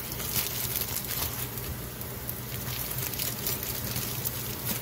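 Onions and bell peppers frying in oil on a hot flat-top griddle: a steady sizzle with fine crackling.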